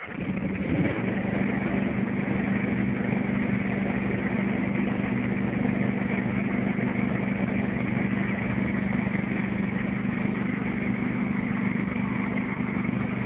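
Riding lawn mower engine starting up and settling within about a second into a steady run.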